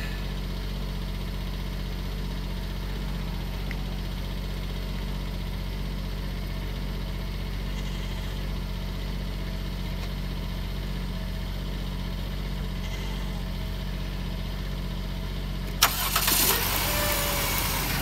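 2007 Dodge Grand Caravan's V6 idling steadily with a misfire, which the owner suspects comes from a faulty coil pack. About two seconds before the end, a sharp click and a short rustling noise.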